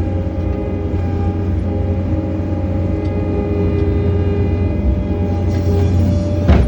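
John Deere 317 skid loader's diesel engine running steadily under load while it pushes snow, with a steady low hum and whine. Near the end a short hiss rises and a sharp knock sounds.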